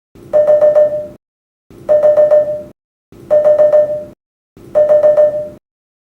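Nissan in-car system alert chime, from the sound set of the E13 Note, Note Aura, Sakura and Ariya, sounding four times about a second and a half apart. Each chime is a quick run of rapid pulses over a steady tone that then fades out.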